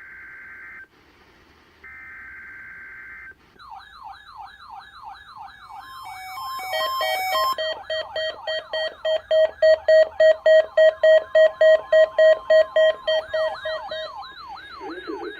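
Emergency Alert System SAME header data, two short buzzy bursts a second apart. Then weather alert radios set off their alarms together: a fast warbling siren that rises and falls about twice a second and loud beeps pulsing about twice a second, with a steady tone under them. The beeps stop near the end while the warble goes on.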